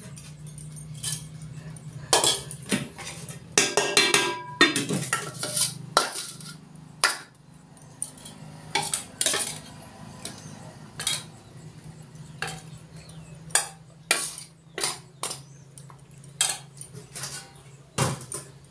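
Stainless steel serving ware clinking and knocking: a spoon against steel bowls and plates, and steel bowls set down on and lifted from a steel pot, in repeated irregular clinks, some briefly ringing. A low steady hum runs underneath.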